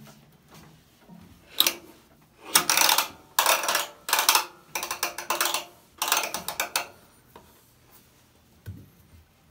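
Metal washing-machine panels and parts scraping and rattling as they are handled and pulled during disassembly: a string of about six loud bursts, starting about a second and a half in.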